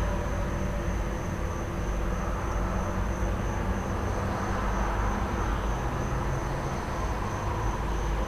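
Idling truck engine with a steady low rumble, under a constant high cricket trill. Traffic noise swells and fades about halfway through.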